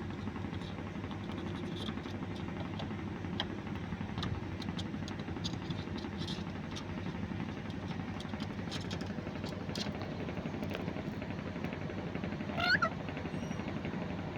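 A black-capped lory gives one short, loud, rising call near the end, over a steady low hum and a few faint clicks.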